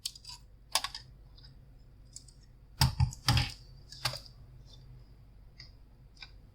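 A desktop computer's hard drive being released and pulled from its drive bay: a series of sharp plastic and metal clicks and knocks, the heaviest cluster about three seconds in.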